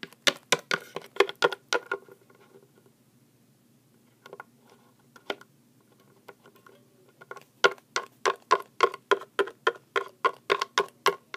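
Quick runs of light taps on a hard surface, about three a second. There is one run at the start, a few scattered taps around the middle, and a longer, louder run near the end.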